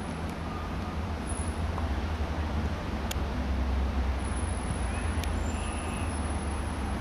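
Steady low rumble of outdoor background noise, with two sharp clicks about three and five seconds in.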